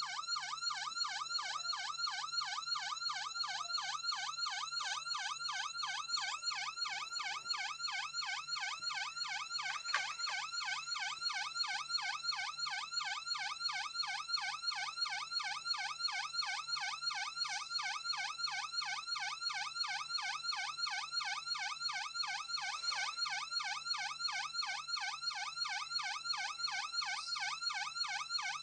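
Electronic police siren in a fast yelp pattern: a quick, even up-and-down wail that repeats without a break.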